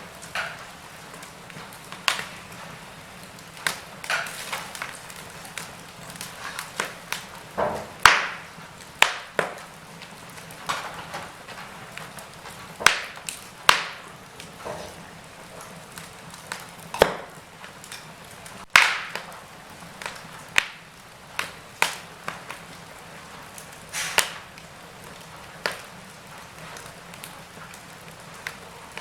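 Wood fire burning in a fireplace: irregular crackles and sharp pops from the burning logs, some louder than others, over a soft steady hiss of the flames.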